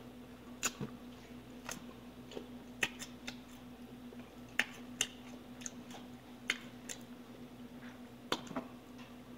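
Close-up eating sounds: irregular sharp crunches and mouth clicks of people chewing food, about a dozen spread through, over a faint steady hum.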